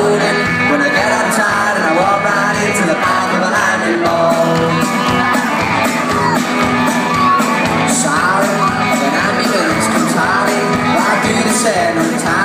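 Live rock band playing: electric guitar, bass and drums with a male lead singer, and the crowd shouting along.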